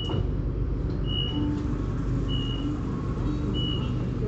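A steady low rumble with a single high beep repeating about once every 1.2 seconds, like a vehicle's warning beeper.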